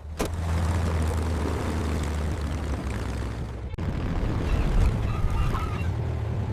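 Steady low engine rumble with a noisy wash over it, dropping out briefly about four seconds in.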